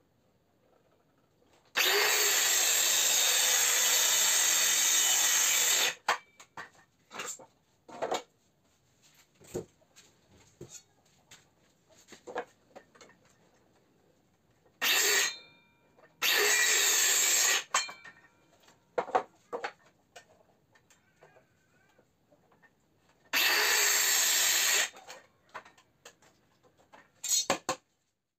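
Cordless circular saw cutting laminated plywood in four bursts: one long cut of about four seconds near the start, then shorter cuts past the middle and near the end, each starting and stopping suddenly. Clicks and knocks from handling the boards come between the cuts.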